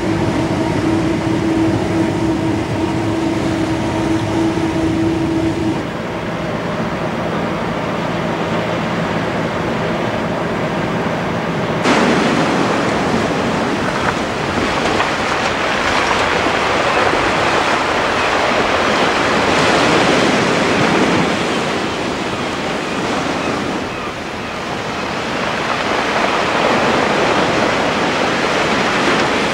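A ship's engine drone with a steady hum gives way suddenly, about twelve seconds in, to surf breaking and washing over a shingle beach in long surges.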